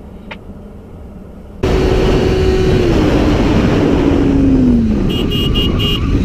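Sport motorcycle riding under loud rushing wind noise, its engine note stepping down in pitch as it slows. It comes in suddenly about a second and a half in, after quieter car road noise, and near the end a quick run of short high beeps sounds.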